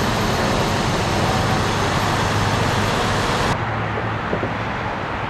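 Steady freeway traffic noise with a low engine hum from vehicles running on the road. About three and a half seconds in, the high hiss suddenly drops away and the rush continues lower.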